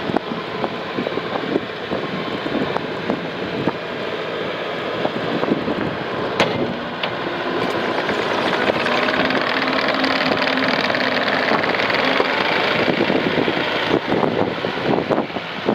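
New Holland C227 skid steer's diesel engine running, with scattered knocks and clanks from the machine; it gets louder about halfway through.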